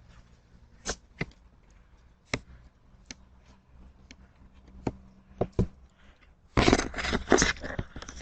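Someone at a front door making scattered sharp clicks and knocks, heard through a doorbell camera's microphone over a faint steady hum. About six and a half seconds in comes a loud, rough scraping and rustling close to the microphone.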